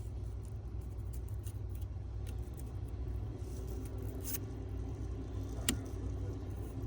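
Small metal ticks and clicks of a Lishi pick working in a Ford lock cylinder, with one sharper click a little before the end, over a steady low hum.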